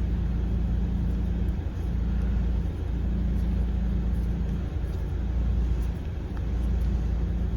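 Steady low mechanical hum, unchanging throughout, with no distinct clicks or knocks standing out from it.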